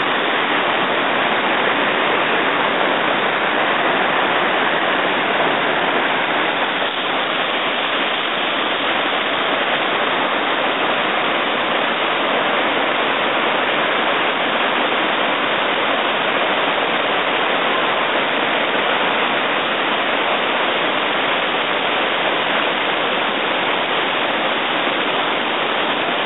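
Shallow river rushing over rocks and a low weir: a loud, steady rush of water.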